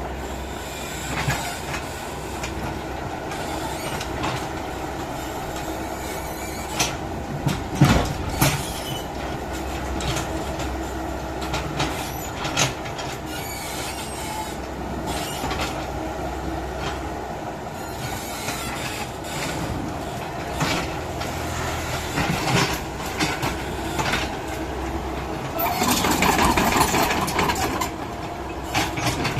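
Excavator at work: its diesel engine runs steadily under scattered metal clanks and knocks, the loudest about eight seconds in, with a louder rushing noise lasting a couple of seconds near the end.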